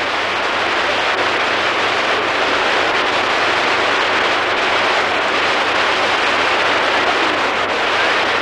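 Steady rush of water from a river waterfall: a dense, even noise that goes on without a break.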